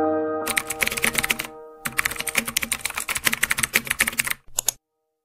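Rapid keyboard typing clicks in two runs, a short one and then a longer one of about two and a half seconds, following held music notes that die away in the first half-second.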